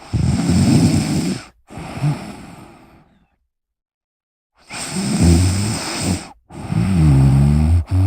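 A person snoring in two breath cycles about four and a half seconds apart. Each cycle is a loud snore of about a second and a half followed at once by a second breath. The second cycle's later breath carries a steady low buzzing tone.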